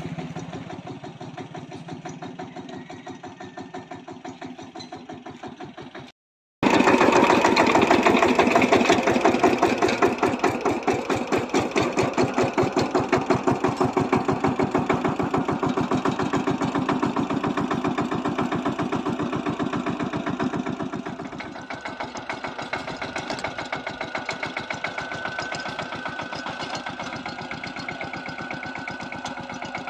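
Power tiller's single-cylinder diesel engine running with a steady, even chugging beat. It cuts out to silence for about half a second some six seconds in, then comes back louder, and eases a little about twenty seconds in.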